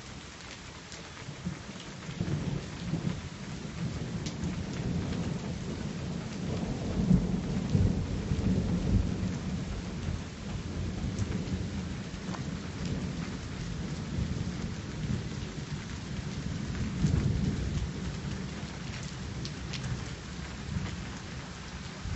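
Long rolling thunder rumbling, building about two seconds in and swelling twice, over a steady hiss and patter of rain.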